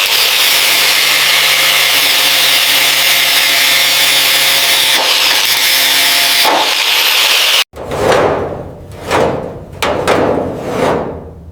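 A power tool cutting out rusted sheet-metal sections of a car body shell, running steadily with a dense hiss, then stopping abruptly. After it comes a run of rasping strokes, about one a second.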